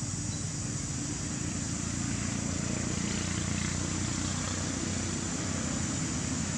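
Steady outdoor background noise: a constant low rumble under a high, even hiss, with no monkey calls.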